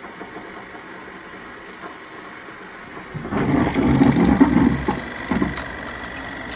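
Film projector mechanism running, with a thin high tone over it. About halfway through it grows much louder and irregular with clicks for a couple of seconds, then settles into steady running.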